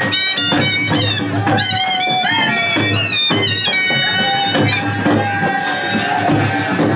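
Loud procession music: drums beating in a steady rhythm under a high, wavering melody line.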